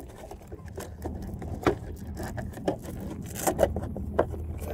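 Handling noise as a LiPo battery is strapped down inside an RC boat's plastic hull with a hook-and-loop strap: scattered clicks and scrapes, over a steady low hum.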